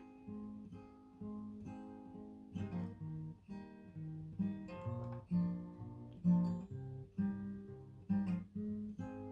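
Acoustic guitar playing an instrumental passage of strummed and picked chords, each chord ringing out and fading before the next.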